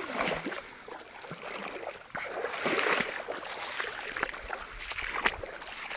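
Lake water sloshing and trickling around a person wading, growing louder for about a second partway through, with a few light knocks.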